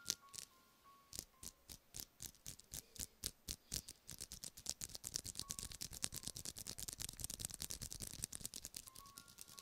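ASMR feather rod tapping and scratching on a microphone: crisp taps several a second at first, speeding up about four seconds in into a fast, dense scratching patter.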